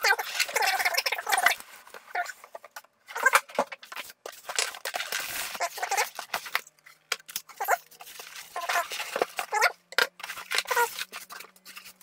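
Cardboard box and polystyrene foam packing being handled: the foam insert sliding out of the box and the foam lid pulled off, in irregular bouts of scraping and rubbing.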